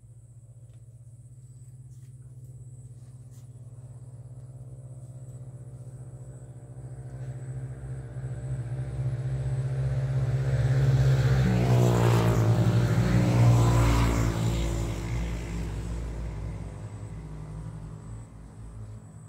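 An engine passing by: it grows steadily louder over about ten seconds, is loudest twelve to fourteen seconds in with its pitch dropping as it goes past, then fades away.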